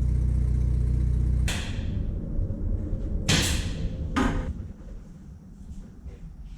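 A steady low machine hum that cuts off abruptly about a second and a half in, followed by two sharp knocks or clatters.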